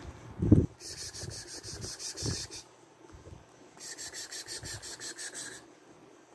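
A kitten's claws raking rapidly at dark fabric in two spells of about two seconds, about five or six scratchy strokes a second. A dull thump about half a second in is the loudest sound.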